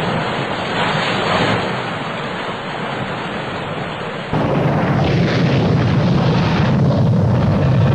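Rushing noise of heavy breaking seas and wind. About four seconds in it cuts abruptly to a louder, deep rumbling and booming.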